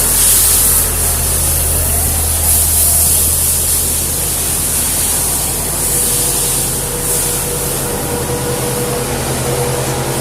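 Topre truck refrigeration unit running: a steady rush of air from the evaporator fans over the low hum of the unit and engine, which shifts in pitch about six seconds in.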